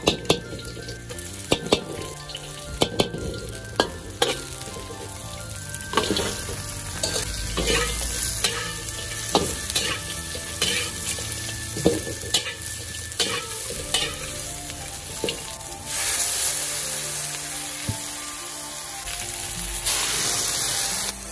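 Food stir-frying in a hot wok: garlic and then fried chicken wings sizzle in oil while a spatula knocks and scrapes against the wok many times. The sizzling swells to a louder hiss near the end as soup stock is poured in.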